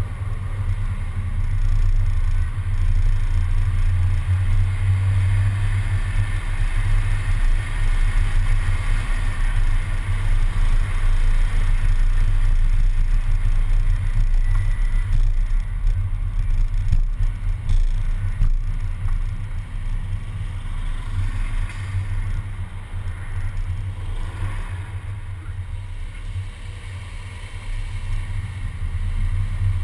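Steady low rumble of a city bus driving in traffic, picked up by a camera mounted outside on the bus's front, with wind and road noise on the microphone; it grows a little louder midway and eases off toward the end.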